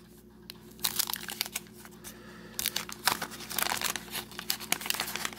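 Wax-paper wrapper of a 1979 trading-card pack being torn open and crinkled by hand, a run of irregular crackles that starts about half a second in.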